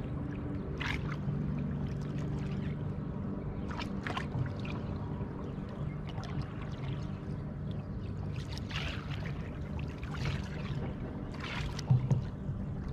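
Water splashing and sloshing beside a kayak hull in several short bursts as a hooked musky is played next to the boat, over a steady low hum. A short, loud knock comes near the end.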